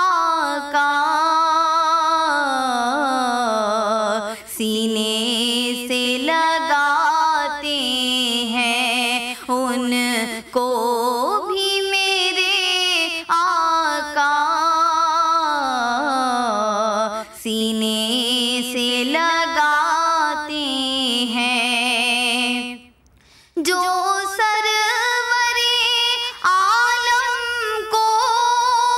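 A young girl's voice reciting a naat, an Urdu devotional song in praise of the Prophet, sung solo without accompaniment. She holds long, wavering notes and pauses briefly about 23 seconds in.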